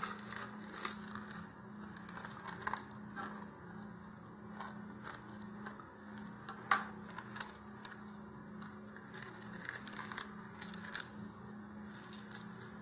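Thin plastic crinkling and rustling as a folded plastic model-rocket parachute and its plastic bag are handled and unwrapped: irregular crackles, with a sharper one about halfway through, over a faint steady hum.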